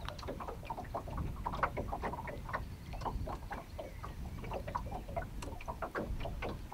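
Small waves lapping and slapping irregularly against the side of a small boat, several light slaps a second, over a steady low rumble of wind on the microphone.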